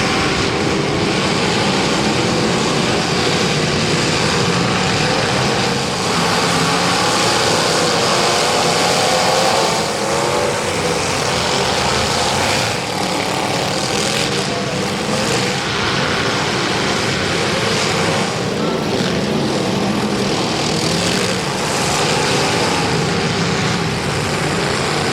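Several unmuffled demolition derby cars running hard together, their engines making a loud, steady, wavering drone.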